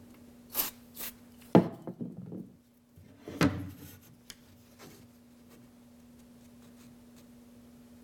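Two short puffs from an aerosol CA-glue activator can sprayed onto a small wooden molding cap, followed by a few knocks as the can and pieces are set down on a wooden workbench, then quiet handling as the cap is pressed onto the molding.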